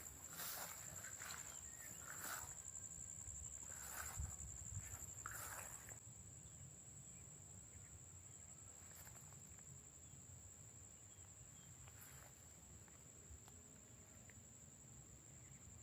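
A steady, high-pitched insect trill, like a cricket, sounds throughout. For about the first six seconds it is joined by a few soft footsteps.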